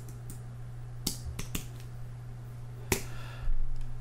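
A few sharp computer keyboard keystrokes, scattered about a second apart, over a steady low hum, with a short louder rush of noise near the end.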